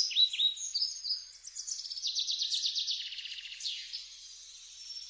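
Birds chirping: short, high, downward-sweeping chirps, then a fast, even trill of rapid notes about two seconds in, which fades off toward the end.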